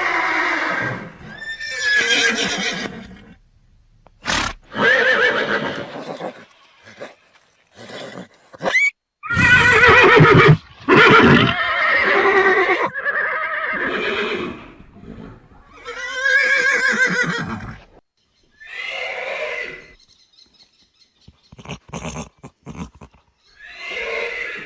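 Horse neighing again and again: a string of loud whinnies with a quavering pitch, each a second or two long with short pauses between, the last few quieter.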